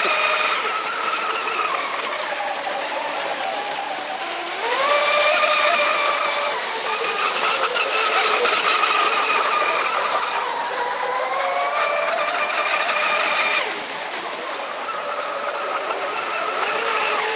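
Radio-controlled electric speedboats running fast on open water: a high motor whine over the hiss of the hulls through the water. The pitch glides up and down as the throttle changes, jumping up about four and a half seconds in and falling away a few seconds before the end.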